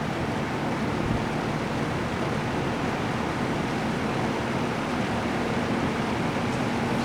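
1974 Lakewood P23 20-inch box fan with aluminum blade and McMillan motor running on low speed: a steady rush of moving air over a faint steady motor hum, a sound its owner calls very industrial.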